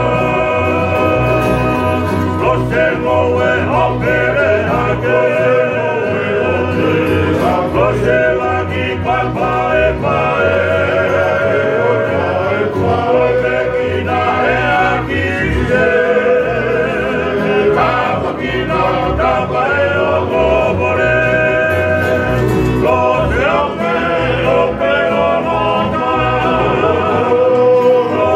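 A group of men singing a Tongan kava-club (faikava) song together, accompanied by strummed ukuleles and an acoustic guitar, with a steady strummed beat.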